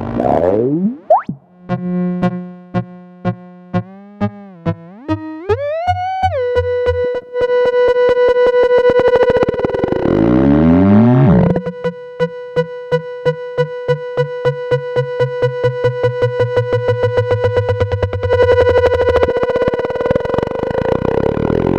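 EMS VCS3 MkII analogue synthesizer: a pulsing, wobbling tone glides up in pitch and settles into a steady buzzy drone with a regular pulse of about three beats a second. Around the middle and again near the end, overtones fan out and sweep up and down through it.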